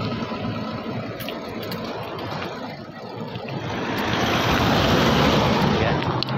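Wind rushing over the microphone while riding a bicycle on the road, with tyre and traffic noise; it eases about halfway and swells again after about four seconds.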